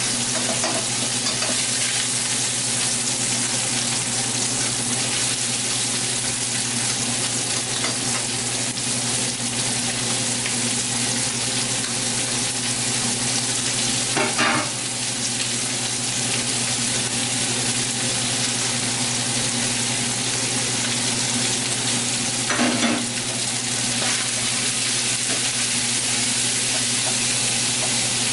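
Chopped onion and garlic frying with browned ground beef in a stainless steel skillet, browning in the fat left from the meat: a steady sizzle. A utensil stirs in the pan, with two brief louder scrapes, about halfway and about two-thirds of the way through.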